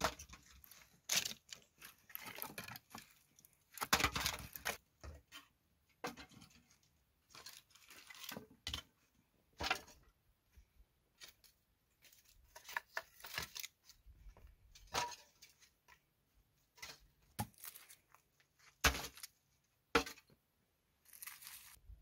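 Thin dry wooden slats being split apart by hand and laid into a clay tandoor pit: irregular cracking, splintering and clattering of wood.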